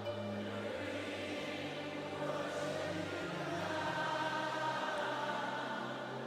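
Worship music with a choir of many voices holding long notes and no clear words; the chord shifts a couple of times along the way.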